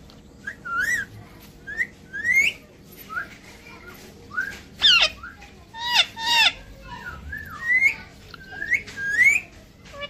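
A parakeet giving a string of short, whistled calls, mostly quick rising glides, about one every half second to second.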